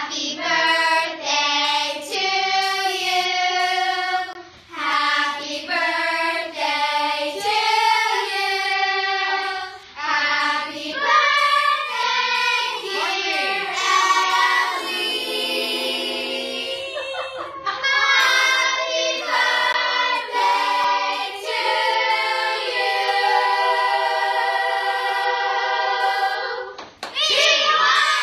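A group of young girls singing together, holding long notes toward the end of the song, then breaking into excited shouts and cheers just before the end.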